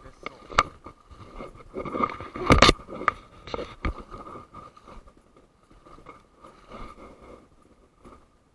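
Irregular scraping, rustling and knocking close to the microphone, loudest about two and a half seconds in and thinning out in the second half, over a steady thin high hum.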